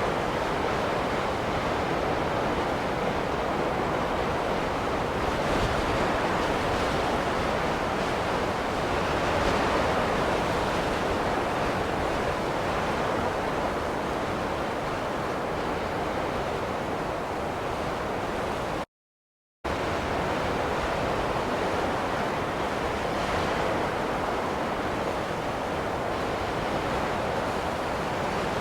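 Steady, even rushing of wind in a snowstorm, with no gusts or other sounds, cut to a moment of silence for under a second about two-thirds of the way through.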